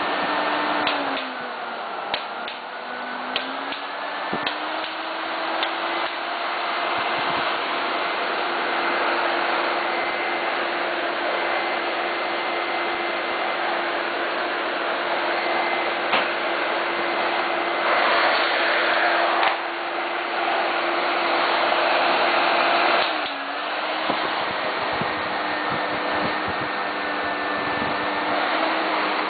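Miele S280i vacuum cleaner motor running with a steady whine over the rush of air. Its pitch sags and recovers twice, a couple of seconds in and again about 23 seconds in. A few brief clicks come near the start, and the air rush swells for a second or so about 18 seconds in.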